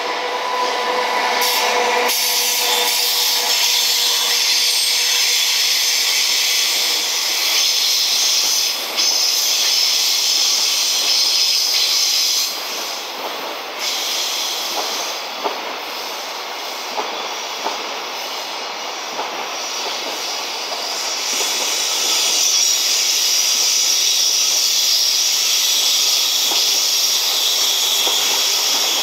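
Freight train of container flatcars rolling past: the steel wheels running on the rails make a steady, dense, high hiss. It eases off for a while in the middle, then swells again. A steady hum stops about two seconds in, as the locomotives go by.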